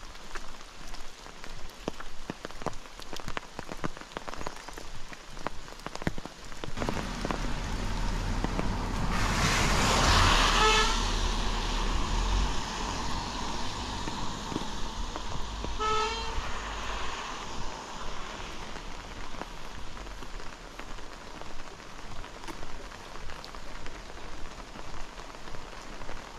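Rain falling on a road with regular footsteps, as a motor vehicle approaches and passes with a low rumble, loudest about ten seconds in. A vehicle horn toots briefly as it passes, and again about six seconds later.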